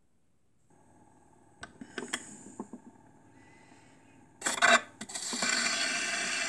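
Gramophone playing a shellac 78 rpm record: a few light clicks and knocks from the mechanism, then a louder scratchy noise about four and a half seconds in as the needle sets down on the record. It is followed by the steady hiss and crackle of surface noise from the lead-in groove before the music starts.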